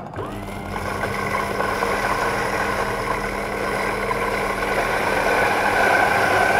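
Maksindo MKS-GRD40A electric coffee grinder (200 W motor) starting up and running steadily as it grinds roasted coffee beans at its finest setting, number 1. It hums evenly and grows a little louder over the seconds.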